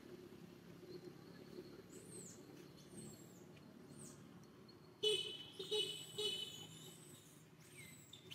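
Monkey cries: three loud, high-pitched squeals in quick succession about five seconds in, with thinner falling chirps before them and near the end.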